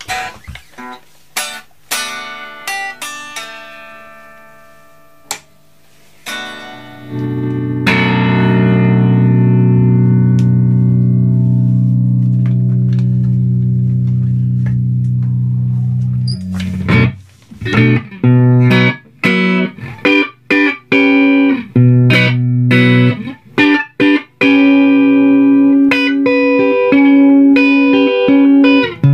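Electric guitar played through a Beetronics Tuna Fuzz pedal into a Marshall Plexi amp and Marshall cabinet. A few short single notes at first, then a long ringing chord held for about nine seconds from about seven seconds in, then choppy stop-start chords.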